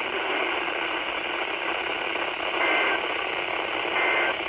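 NOAA weather radio receiver putting out a steady hiss of static, with two brief, faint two-tone data warbles in the second half: the bursts of an EAS (SAME) alert header under the noise.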